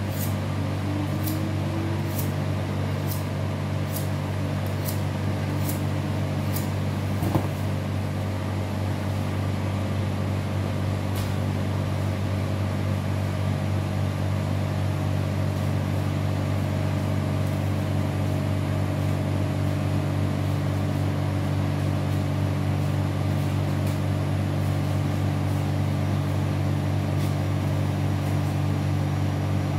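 Steady hum of a cold room's refrigeration evaporator fans. Over the first several seconds a knife is stroked on a honing steel, a light metallic scrape about once a second, and a single knock follows a little later.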